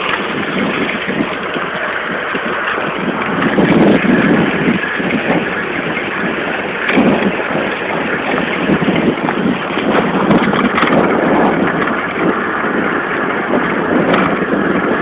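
Wind buffeting the microphone, mixed with road and tyre noise, while riding an electric bicycle at speed; the level swells and dips unevenly.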